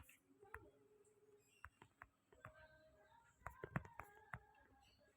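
Near silence with a few faint, scattered clicks, several of them bunched together about three and a half seconds in.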